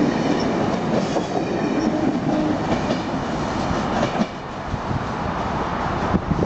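Amtrak Northeast Regional train rolling past, its wheels running on the rails with a steady clatter; the level drops about four seconds in.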